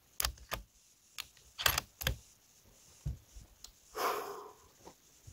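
Handling noises from a scoped 7mm Remington Magnum rifle being settled on sandbags on a pickup's hood: a string of sharp clicks and knocks, several close together in the first two seconds, then a few more and a short rustle about four seconds in.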